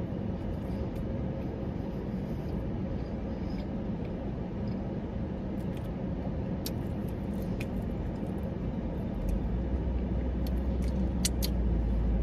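Steady low rumble of a car heard from inside the cabin, with a deeper rumble swelling about nine seconds in. A few short sharp clicks are heard, mostly near the end.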